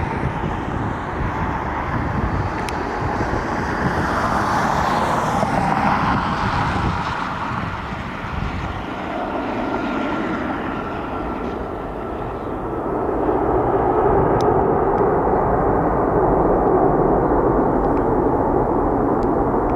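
Jet airliner engines heard across an airport, a steady rushing noise that eases off midway and grows louder again over the last few seconds.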